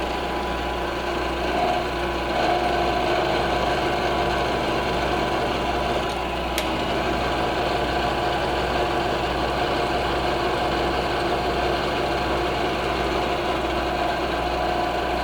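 Milling machine running steadily, its cutter taking a light finishing pass across an aluminium part, with a steady hum and whine. A single sharp click about six and a half seconds in.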